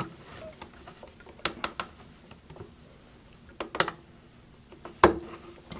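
A few short, sharp clicks and taps from an R. M. Young Wind Monitor's nose cone being screwed by hand onto the sensor body. They come in small groups about one and a half, almost four and five seconds in, the last the loudest.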